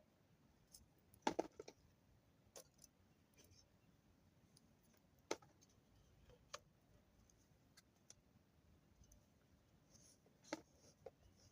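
Sparse light clicks and knocks over near silence, a small cluster about a second in, single sharper ones near the middle and one more near the end.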